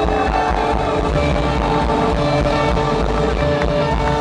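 Live rock band playing loud, with electric guitars holding long sustained notes.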